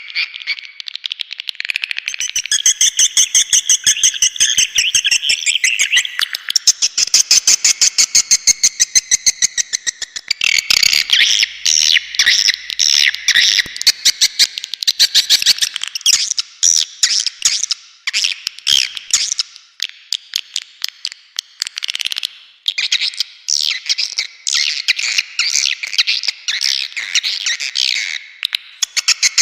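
Recorded swiftlet calls, a lure sound for swiftlet houses: dense, very rapid chittering twitters and clicks in repeated phrases a few seconds long, high-pitched and unbroken.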